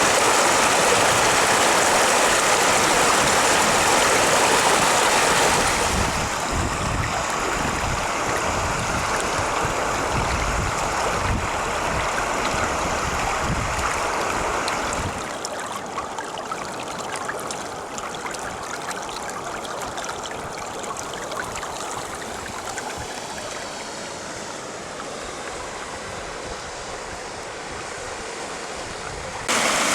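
Floodwater rushing in a steady wash of noise. It drops a step in level about six seconds in and again about halfway through.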